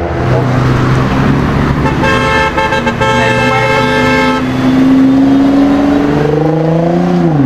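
A car horn sounds for about two seconds. Then a Nissan GT-R R35's twin-turbo V6 revs up as the car accelerates hard, its pitch climbing steadily before it drops with an upshift near the end.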